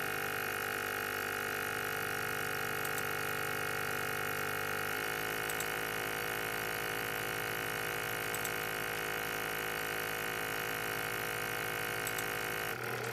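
BGA rework station running with its heaters and vacuum pump on, a steady machine hum made of several level tones. The hum shifts slightly about five seconds in and changes again near the end.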